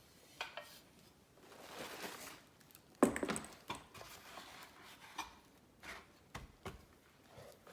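Handling during a keyboard unboxing: a rustle, then a solid knock about three seconds in as something is set down, followed by scattered clicks and taps.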